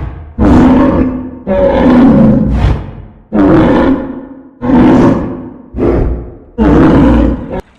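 Dinosaur roar sound effects: a string of about seven loud roars back to back, each about a second long, starting abruptly and fading away.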